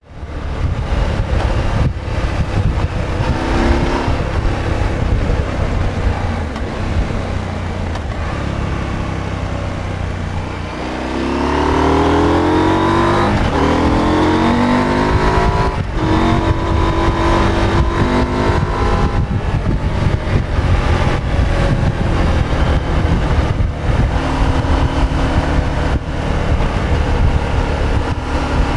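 KTM 890 Adventure's 889 cc parallel-twin engine running steadily, then accelerating a little over a third of the way in with a rising pitch. There are two brief breaks as it shifts up, after which it holds a steady, louder drone.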